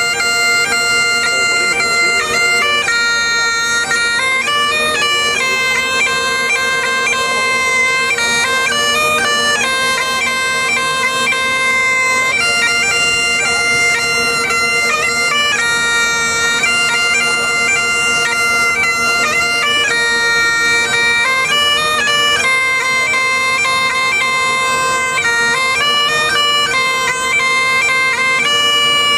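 Bagpipes played solo, a melody on the chanter over an unbroken steady drone.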